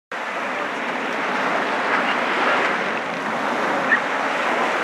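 Steady rushing noise of surf and wind at the shore, with one brief sharp sound about four seconds in.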